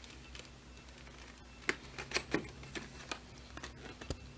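Scattered light clicks and taps of small items being handled and set in place, over a low steady hum.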